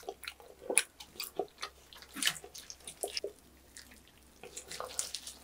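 Close-up wet chewing and lip smacks of a person eating roast pork knuckle (Schweinshaxe), irregular sticky clicks throughout, with crinkling of plastic gloves and handling of the meat in the second half.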